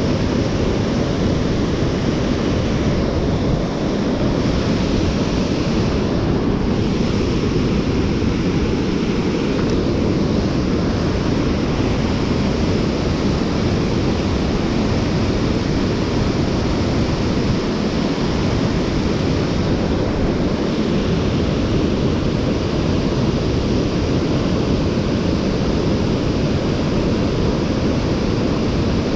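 Mountain stream water rushing steadily over rocks, a constant loud roar with no breaks.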